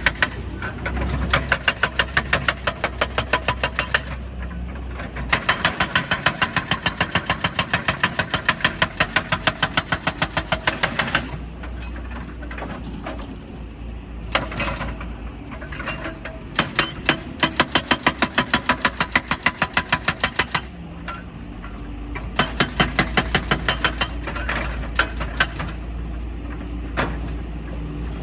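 Heavy rock-breaking machinery: rapid, evenly spaced hammering impacts in runs of several seconds with short pauses between, over a steady low engine hum.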